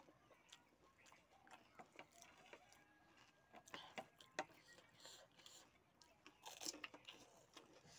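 Faint scattered clicks and crackles of crisp pani puri shells being handled and bitten, with quiet chewing; the sharpest clicks come about four seconds in.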